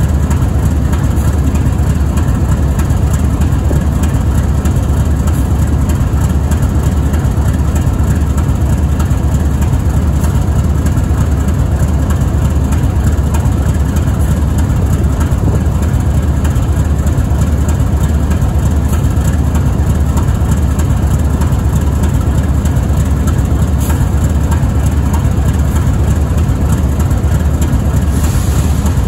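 GE ES44AC locomotive's GEVO V-12 diesel engine idling steadily, its sound deep and low.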